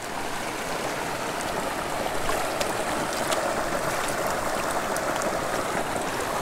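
Small mountain creek running steadily over a shallow cobble riffle into a pool, with a few faint ticks on top.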